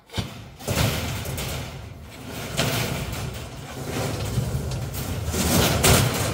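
Steel sheet being dragged out of a storage rack from behind lengths of steel: metal scraping and grating against metal, with a sharp start and swelling loudest about three-quarters of a second in and again near the end.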